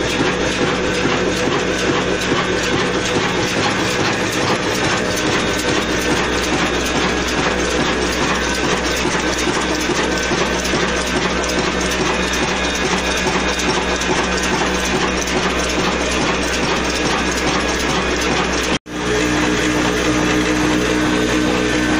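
Old stationary Ruston diesel engine running steadily with a rapid, even rhythmic clatter, belt-driving a flour mill. The sound cuts out for an instant about three quarters through, then comes back as the same steady running with a different hum.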